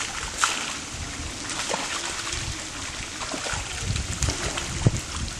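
Water splashing and sloshing as a mass of fish thrashes in a net pulled tight in shallow pond water, with bowls dipping in to scoop them out; irregular splashes throughout, with one sharper slap of water near the end.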